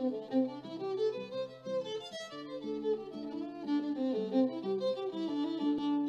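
Instrumental background music: a melody of held notes, changing about every half second, over a sustained lower note.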